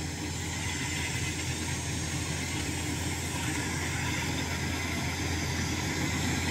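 Kubota DC105 rice combine harvester running steadily as it cuts through standing rice, a constant engine drone with machinery noise. It grows slightly louder as it comes closer.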